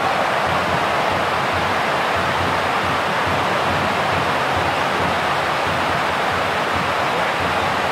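Steady, even roar of a stadium crowd at a football match, with no chant rhythm or single voices standing out.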